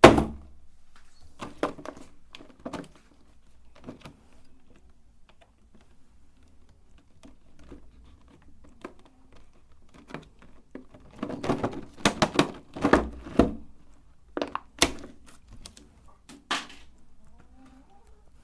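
Irregular thunks, knocks and clatters of small objects being handled, loudest in a sharp knock at the very start and busiest about 11 to 13.5 seconds in.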